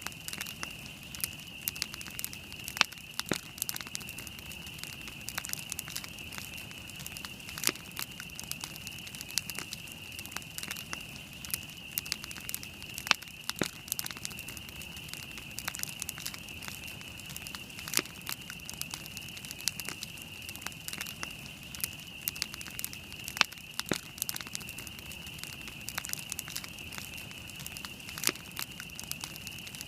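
Wood campfire burning, crackling with frequent sharp pops at irregular intervals over a steady high-pitched hiss.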